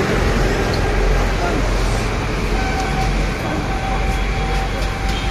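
Roadside traffic noise: a steady low rumble of passing vehicles, with background voices murmuring. A thin steady tone sounds for about two seconds midway.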